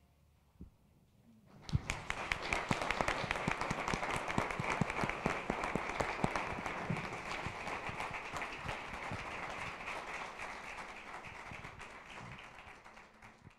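Audience applause at the close of a live performance, starting about two seconds in and slowly dying away near the end.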